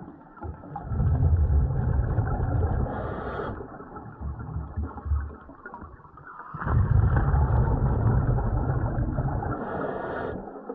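Scuba breathing underwater through a late-1950s U.S. Divers DA Aquamaster double-hose regulator: two long exhalations of bubbles, each lasting about three seconds, with a quieter inhalation between them.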